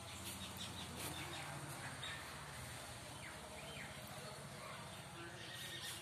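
Birds chirping in short calls, faint, over a low steady hum.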